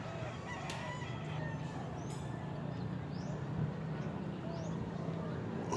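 Faint bird calls, short and scattered, over a steady low background rumble.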